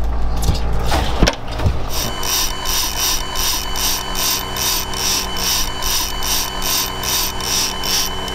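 Magnum electric downrigger motor running, a steady whine with an even pulsing about two and a half times a second as the cable spool turns. It winds down and stops near the end. A boat engine hums underneath, with a single knock about a second in.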